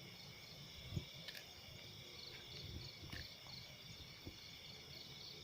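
Night insects chirping in a steady, pulsing chorus, with a few faint soft knocks close by.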